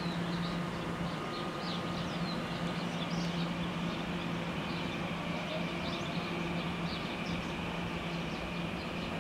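Steady electric hum from a TEMU2000 Puyuma tilting electric multiple unit at the platform, with a higher whine joining about four seconds in. Small birds chirp throughout.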